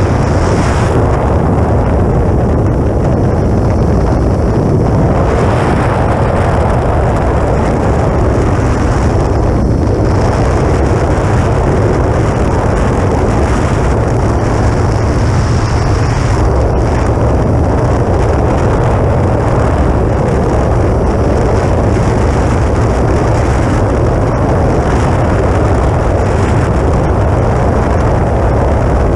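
Steady rush of air over a wingtip-mounted action camera on a flying electric RC model plane, an E-flite Air Tractor, mixed with the drone of its motor and propeller.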